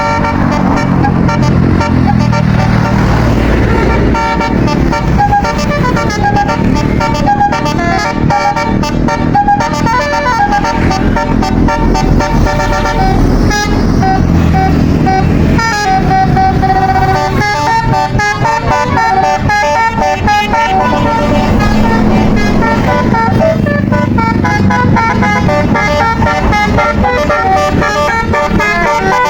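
Tour buses' Basuri telolet horns playing melodies of quick stepped notes, with the buses' engines running underneath.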